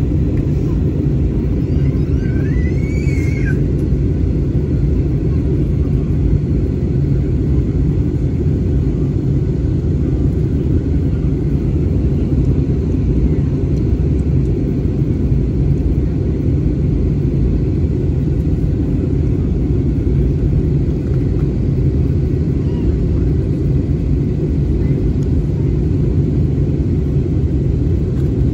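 Steady low drone of an airliner's jet engines and rushing air, heard inside the cabin in flight. A brief high squeak rises and falls about three seconds in.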